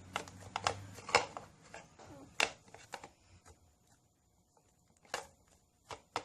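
Sticky slime made from EVA foam clay and glue being squeezed and pulled off the hands: irregular small sticky clicks and crackles, thick for the first few seconds, then a quiet gap and a few more clicks near the end.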